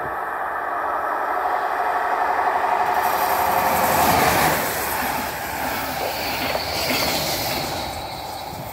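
DB class 112 electric locomotive and its double-deck coaches passing at speed. The train grows louder on the approach and is loudest about four seconds in as the locomotive goes by. The wheel-and-rail rush of the coaches then fades as the train moves away.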